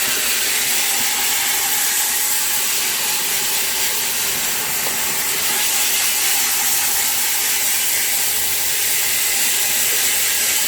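Steady, unbroken hissing spray jet used to wash out an air conditioner.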